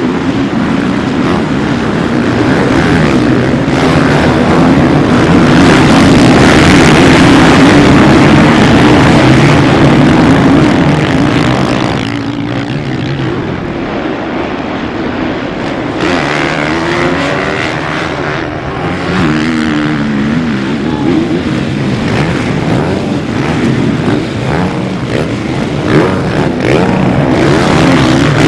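A pack of motocross dirt bikes racing, many engines revving up and down together. The sound is loudest in the first half and drops suddenly about twelve seconds in.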